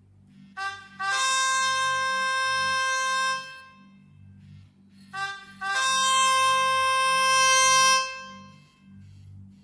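Nokia Asha 302 ringtone playing: two short notes followed by a long held note, the phrase sounding twice with a pause of about two seconds between.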